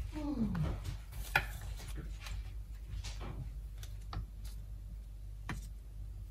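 Light clicks and taps of a spoon spreading soft cheese on a flour tortilla, with a short falling squeak just after the start and a sharper tap about a second and a half in.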